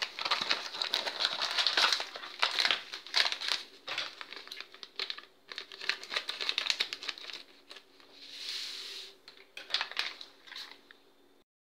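A gelatin powder sachet being crinkled and snipped open with scissors, with a run of dense crackling. About eight seconds in comes a short soft hiss as the powder is poured into a glass bowl, then a few light clicks.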